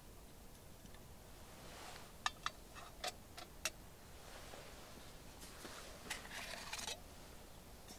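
Camp cookware being handled: a few light metal clicks and knocks between about two and four seconds in as a cup is set on a small emergency stove, then a soft scraping rustle near the end.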